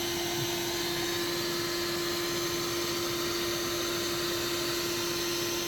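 A vacuum motor running steadily, a constant hum with one steady tone over a wide hiss.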